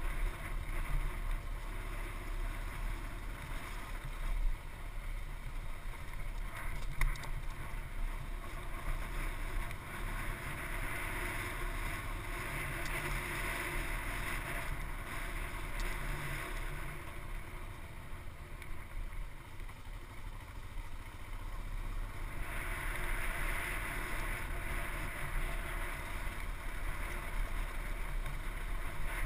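Off-road motorcycle ridden over a rough rocky trail, heard from a helmet-mounted camera: a steady engine drone and rumble mixed with wind on the microphone, with a few sharp knocks from the bumpy ground, one about four seconds in and another about seven seconds in.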